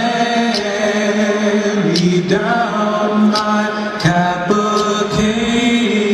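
Men's voices singing a slow song together in unison, holding long notes that change pitch every second or two, with a few brief sharp sounds over it.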